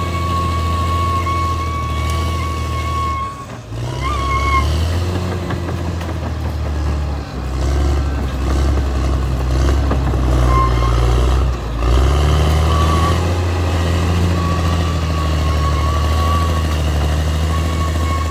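Caterpillar D6R XL bulldozer's diesel engine running steadily, with a steady high whine over the engine note. The engine note dips and shifts pitch briefly three times, about three and a half, seven and twelve seconds in.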